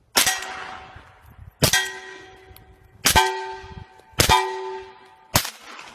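Five pistol shots, one every second or so. After most of them a struck steel target rings with a clear metallic tone that fades away. The last shot's ring is short.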